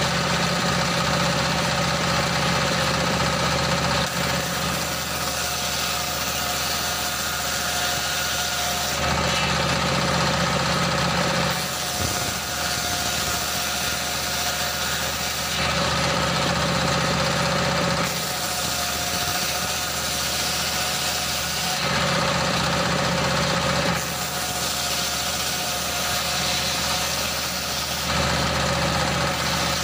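Engine-driven circular saw bench running steadily while a log is ripped into boards. The blade's cutting noise swells and falls back every few seconds as each pass is fed through and finished.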